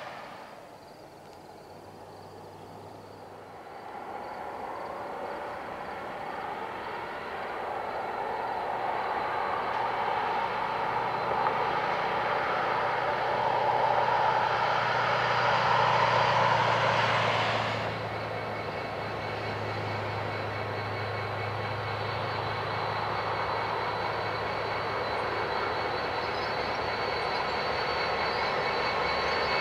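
Loaded coal train approaching, led by EMD SD70MAC diesel-electric locomotives: a steady low engine drone with a whine, growing louder as the units near. A rushing noise swells over it and cuts off suddenly about eighteen seconds in.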